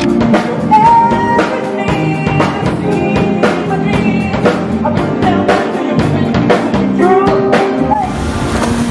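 Music with a drum kit keeping a steady beat under a pitched melody line.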